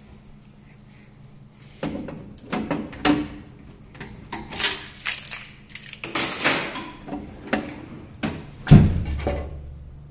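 A low steady hum, then from about two seconds in a run of sharp knocks and clattering from the Hobart dishwasher being handled, ending in one heavy, deep thump near the end.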